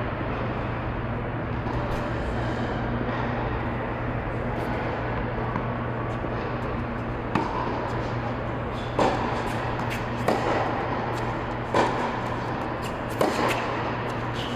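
Tennis ball hit back and forth with rackets in a rally on a hard court: sharp pops of racket strikes and ball bounces begin about halfway in, coming every second or so. Under them is a steady low hum.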